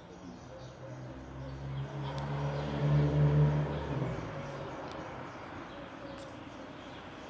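A motor vehicle driving past, its engine hum swelling to a peak about three seconds in and fading away by four and a half seconds.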